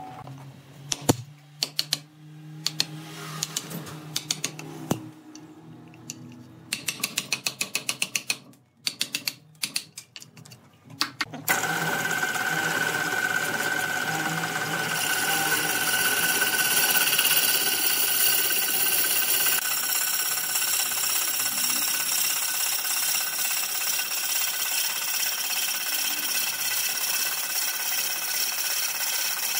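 Clicks and knocks, some in quick rapid runs, for the first ten seconds or so. Then, starting suddenly, a wood lathe spins a turned wooden vase while a long hollowing tool cuts into the inside of its neck, a loud steady scraping of wood being shaved away.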